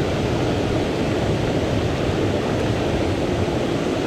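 Steady rushing of a shallow, rocky stream flowing over stones, an even noise with no separate splashes.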